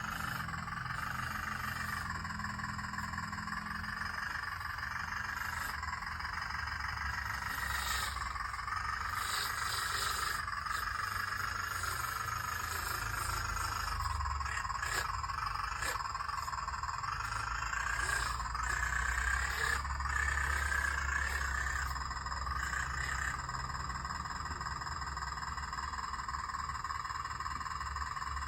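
Radio-controlled excavator's motor whining steadily while it works, the pitch drifting up and down as the load changes, with a few short clicks near the middle.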